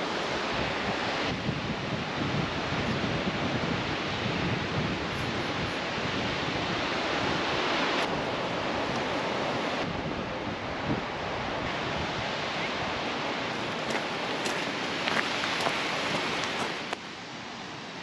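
Steady rushing noise, with a few sudden shifts in level and a clear drop near the end.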